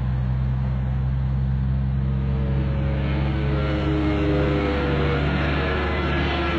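Aircraft engine running with a steady low drone. About two seconds in, a higher engine whine comes in and grows stronger.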